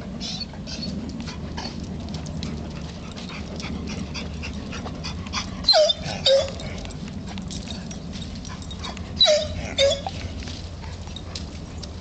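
Debarked Basset Hound/Golden Retriever mix giving hoarse, strangled barks, two pairs of them about six and nine seconds in, each bark dropping in pitch. The debarking leaves the barks raspy and breathy rather than full.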